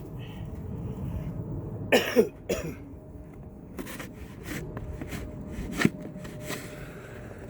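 A man coughs twice in quick succession about two seconds in, over a steady low rumble. A single sharp knock follows later.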